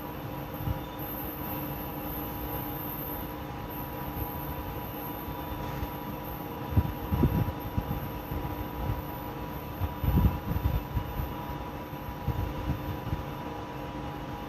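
Freight train running past: a steady rail rumble with faint steady tones, and irregular low thumps from about seven seconds in.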